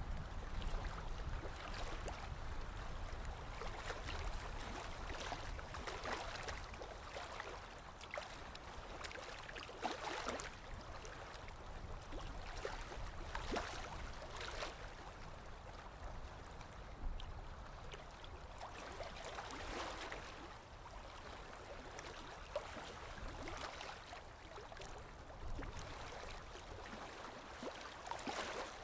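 Water flowing and gurgling, swelling and easing every few seconds, with small splashes and drips.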